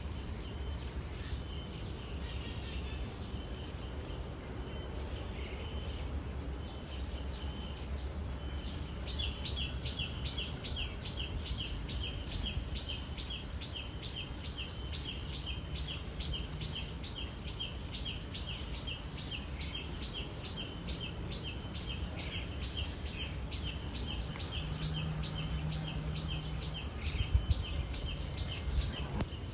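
Cicadas droning in a steady, loud, high-pitched chorus. Over the drone come a few faint calls early on, then from about nine seconds in a rapid chirp repeated two to three times a second.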